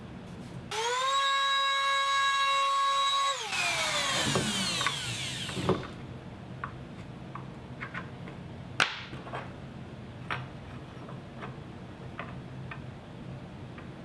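RIDGID palm router switched on under a second in, running at a steady high whine for about three seconds, then switched off and winding down with a falling whine. Then come light scattered clicks and taps, with one sharper click about nine seconds in, as a metal door strike plate is handled and set into its freshly routed mortise.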